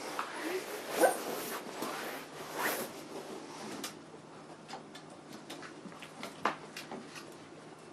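Month-old puppies whining and yipping in short cries, several in the first three seconds, followed by a scattering of light clicks and scratches.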